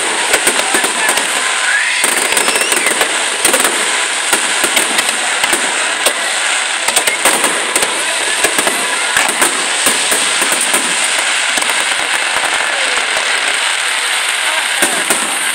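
Aerial fireworks display: many shells bursting and crackling in quick succession, a dense, continuous stream of sharp bangs and pops.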